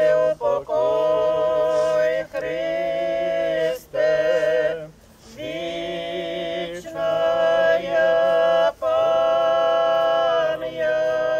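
Unaccompanied church singing: voices chant a slow funeral hymn in long held notes with short breaks between the phrases.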